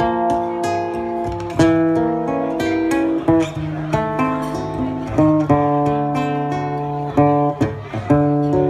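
Solo acoustic guitar played by itself with no voice, notes plucked one after another over ringing bass notes.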